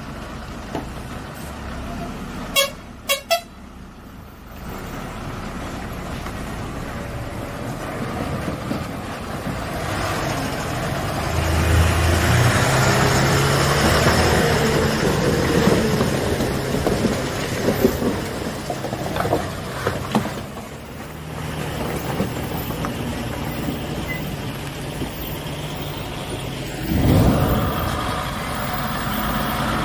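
Heavy loaded trucks' diesel engines running as they pull through deep mud and muddy water, with two short horn toots about three seconds in. The engine noise grows louder from about ten seconds in, with a louder low surge near the end.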